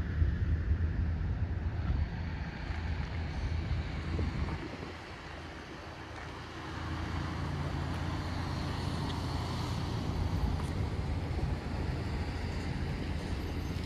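Road traffic: a low engine rumble with some wind on the microphone. The rumble dips for a couple of seconds about five seconds in, then swells back.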